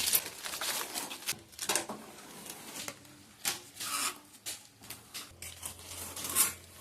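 Intermittent rustling and short tearing sounds of plastic packaging and protective film being peeled off a new aluminium door, in separate bursts a second or so apart.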